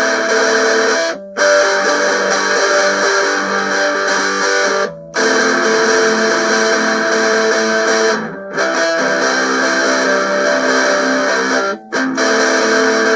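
Guitar playing sustained strummed chords, with four short breaks between chord changes.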